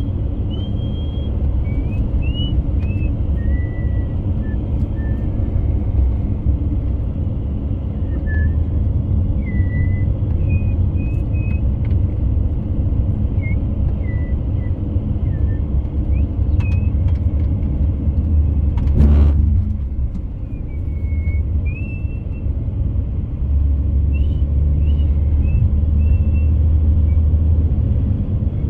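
Steady low road and engine rumble of a car being driven, heard from inside the cabin, with one brief louder whoosh about two thirds of the way in.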